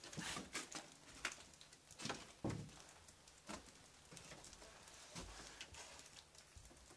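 Faint, irregular footsteps and small knocks, thickest in the first few seconds and sparser later.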